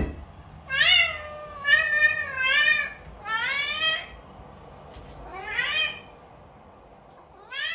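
Domestic cat meowing repeatedly, about six meows, each rising and then falling in pitch.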